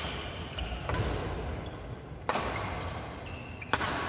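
Badminton rackets smacking the shuttlecock during a rally: four sharp hits about a second or a second and a half apart, each echoing in a large hall.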